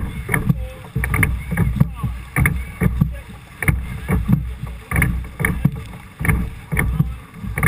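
Pilot gig being rowed hard: wooden oars knocking sharply against the thole pins in a steady rhythm, about every two-thirds of a second, over a constant low rumble of wind and rough water.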